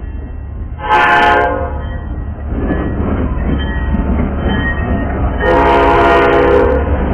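Metra commuter train's diesel locomotive passing close by with a steady low rumble. Its horn sounds twice: a short blast about a second in and a longer one about five and a half seconds in.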